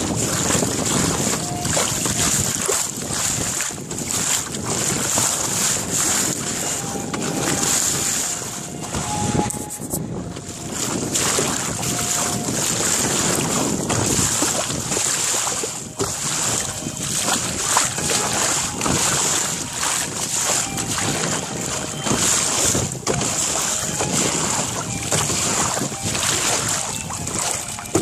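Water rushing and splashing along the bow of a small melonseed sailing skiff under way, with wind buffeting the microphone. The noise is steady and surges up and down in loudness.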